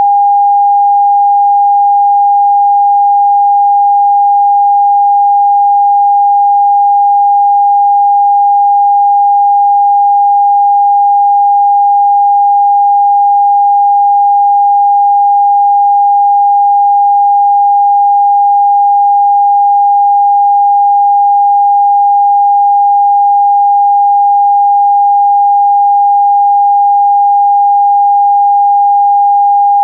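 Television test-card tone: one steady, unbroken sine tone at a single mid pitch, held at constant level.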